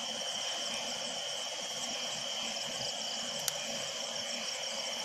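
Night-time insect chorus: a steady high trill with a pulsing shimmer above it, and a single sharp click about three and a half seconds in.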